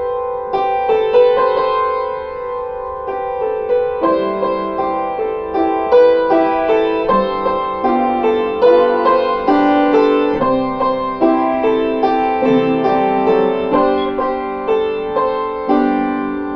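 Instrumental music: a melody of single struck or plucked notes, each ringing and fading, played at a steady pace of about two to three notes a second, with a brief pause near the end.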